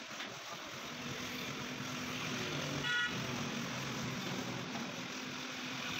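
Street traffic with a low engine hum from a passing vehicle, and one short vehicle horn toot about halfway through.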